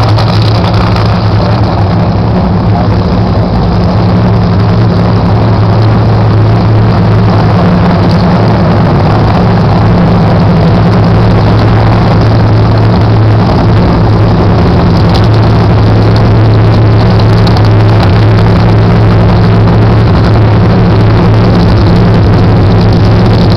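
Supercharged nitromethane Funny Car V8 idling: a very loud, steady, even drone with no revving.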